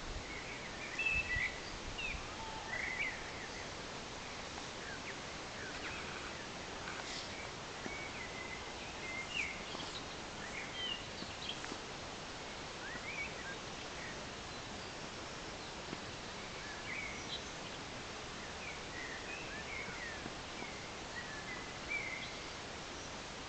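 Woodland ambience: scattered short bird chirps and calls over a steady background hiss.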